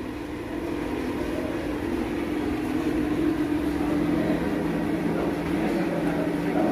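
Steady low mechanical hum with a constant drone, slowly growing louder.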